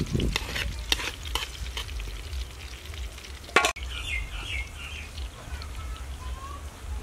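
Egg and pork sizzling in oil in a steel wok while a metal spatula stirs and scrapes against the pan, with one sharp click about three and a half seconds in. After that the frying goes on more quietly, with birds chirping.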